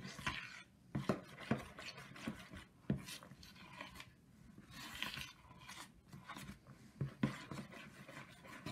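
A metal spoon stirring flour and liquid into dough in a plastic bowl: irregular scrapes, swishes and taps against the bowl.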